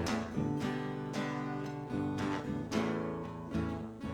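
Acoustic guitar strummed in a steady rhythm, chords ringing between strokes: the instrumental break of a comic song between sung lines.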